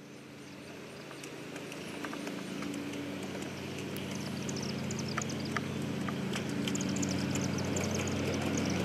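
Garden-scale model steam locomotive approaching on outdoor track. Its wheels click over the rails and it hums steadily, growing louder as it nears, with the clicks coming thicker near the end.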